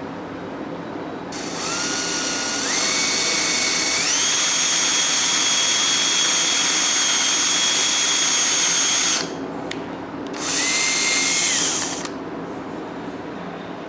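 A small electric power tool motor, drill-type, whining as it runs. It starts about a second and a half in, steps up in speed twice and runs for about seven seconds. After a short pause it runs again briefly at a lower speed and winds down.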